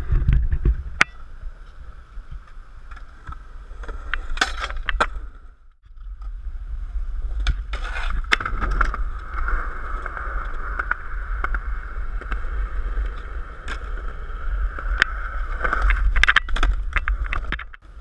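Skateboard wheels rolling on concrete close by: a steady rolling rumble with sharp clacks of the board striking the ground. The sound drops away briefly about six seconds in, then the rolling starts again.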